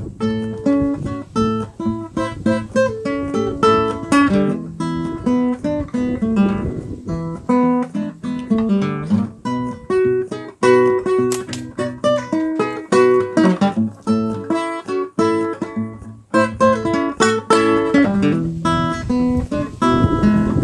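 Background music: blues played on guitar, a continuous run of plucked notes and strummed chords.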